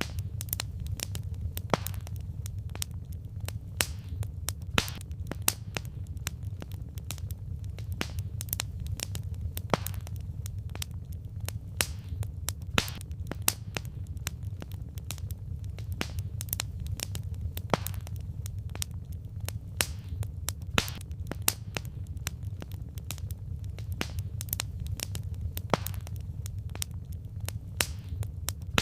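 Wood fire crackling: burning logs pop and snap irregularly, several times a second, over a steady low rumble of the flames.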